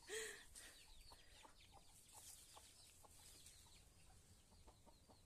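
Chickens clucking faintly: scattered short calls, some of them quick, high, falling peeps.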